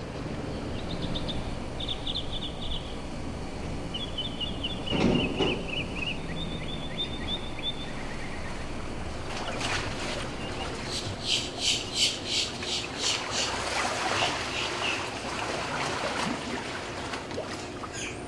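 Waterfront ambience: a steady wash of water and wind with birds calling in short quick trills, a single thump about five seconds in, and a run of about a dozen quick, sharp calls or clicks two-thirds of the way through.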